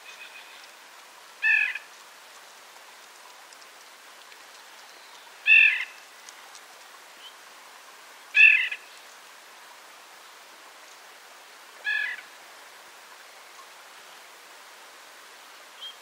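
White-breasted nuthatch giving its nasal 'yank' call: four short calls spaced a few seconds apart, over a faint steady hiss.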